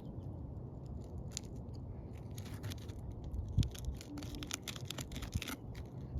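Flat bar prying up an asphalt roof shingle, giving a string of sharp crackles and clicks as the sealed tab is worked loose. The crackling is thickest around the middle.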